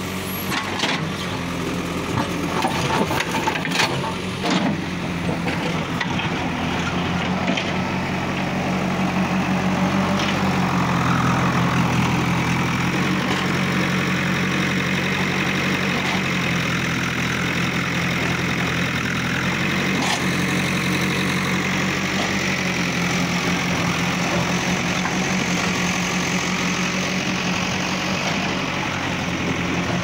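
JCB 3DX backhoe loader's Kirloskar diesel engine running steadily, rising a little for a few seconds as the backhoe works. In the first few seconds there are sharp knocks and cracks of broken concrete under the bucket, and there is one more sharp knock later on.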